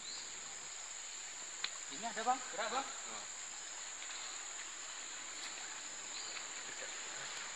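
Insects droning steadily in one high pitch, with a short voice-like call about two seconds in and a single sharp click just before it.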